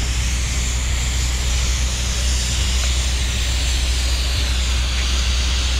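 Steady outdoor background noise: a continuous low rumble with an even hiss over it, and no break or single loud event.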